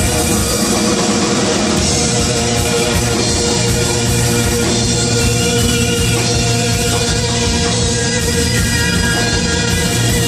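A live band playing loud, steady music, an instrumental passage with no singing.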